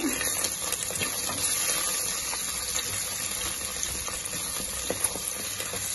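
Hot oil and ghee sizzling steadily in a pressure cooker as green chillies, garlic and ginger fry, with a wooden spoon stirring and giving a few faint clicks against the pot.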